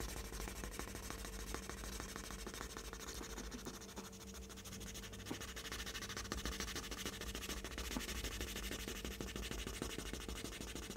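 A small RC car suspension part rubbed back and forth on a sheet of fine sandpaper: a quiet, continuous scratchy rasping of many short strokes. The part is being sanded smooth so that it stops catching.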